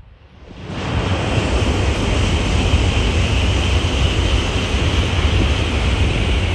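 Tokaido Shinkansen bullet train passing at speed: a loud rushing noise that swells up within the first second and then holds steady, with a strong low rumble underneath.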